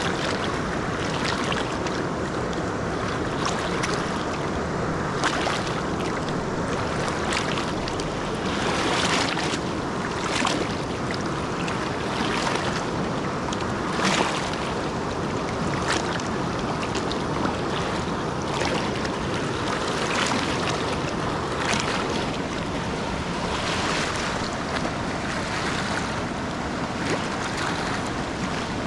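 Steady rush of moving water, with short splashes every second or two.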